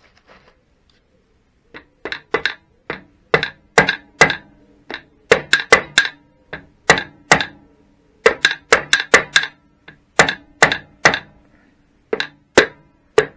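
Copper-faced mallet tapping an aluminium motorcycle gearbox inner cover onto its studs and dowels. It gives repeated sharp knocks, often in quick pairs or threes, starting about two seconds in, with a short metallic ring after each.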